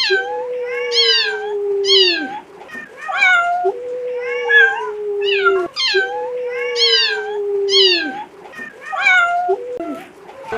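An animal calling over and over: a series of loud, pitched, wavering calls, several drawn out and falling in pitch at the end.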